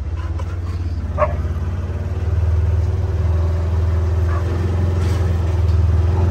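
A side-by-side utility vehicle's engine runs steadily and grows louder about two seconds in as it pulls the harrow. A dog gives one short call about a second in.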